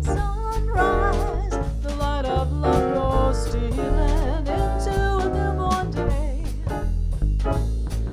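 Small jazz combo playing a swing tune: upright double bass walking underneath, drum kit keeping time, and keyboard, with a voice singing over it.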